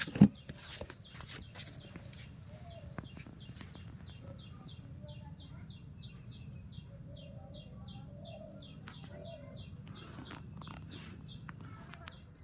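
Outdoor natural background: a steady high-pitched drone with a short chirp repeated about three times a second, and a couple of sharp knocks at the very start.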